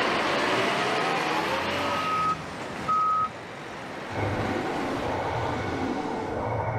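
Heavy truck's diesel engine running close by, its pitch rising as it revs, then two steady, evenly spaced beeps of a reversing alarm. From about four seconds in, a quieter low pulsing sound takes over.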